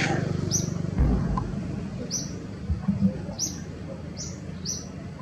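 A bird chirping four times, each call a short high note dropping in pitch, about one and a half seconds apart. A few dull low thumps come about a second in and again near the middle.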